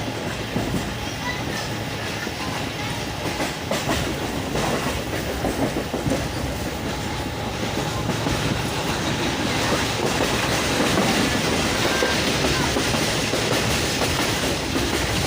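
Passenger train running on the track: steady wheel-and-rail noise with scattered clicks, growing louder and brighter over the second half.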